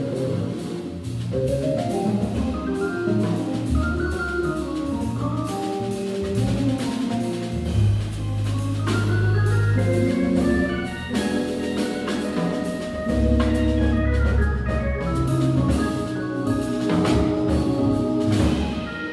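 Live jazz: a Hammond B-3 organ playing melodic lines over long, deep bass notes, with a drum kit keeping time on cymbals and drums.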